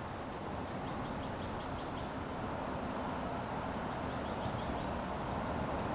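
Steady outdoor background hiss with a faint, continuous high tone. About a second in comes a quick run of five or six high chirps from a small creature, repeated more faintly near four seconds.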